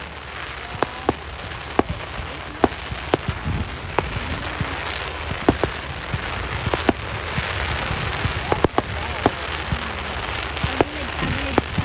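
Fireworks going off: a continuous crackling hiss with many sharp bangs and pops at irregular intervals, the crackle growing denser after the middle.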